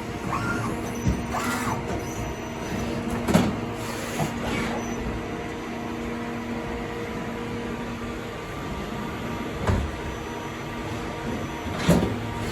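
Steady hum of running workshop machinery, holding several fixed tones, with a handful of short metallic clunks, the loudest about three seconds in and near the end.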